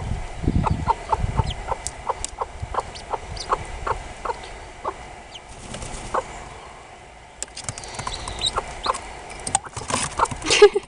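Three-week-old ducklings peeping in short, high notes, a few a second, getting louder and busier near the end.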